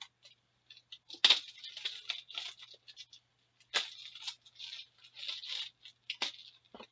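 Plastic wrapping crinkling and tearing as a sealed box of hockey trading cards is torn open by hand, with sharp clicks and crackles in irregular bursts, three of them louder than the rest.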